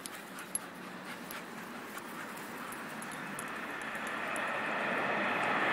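A rushing noise that grows steadily louder, as of a vehicle approaching.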